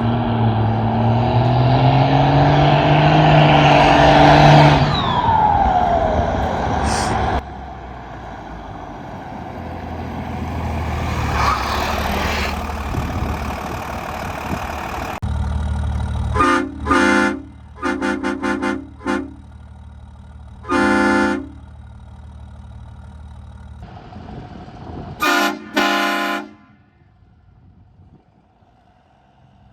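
HornBlasters Conductor Special 232 air train horn on a Dodge Ram 2500 sounding: first a long blast of several tones together that slides down in pitch as it ends, then after about ten seconds of truck running, a series of short toots and blasts, the last two about 25 seconds in.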